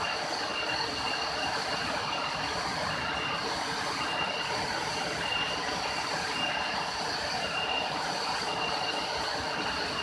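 Waterfall about 20 metres high, a steady rush of falling water, with a short high chirp repeating about once a second above it.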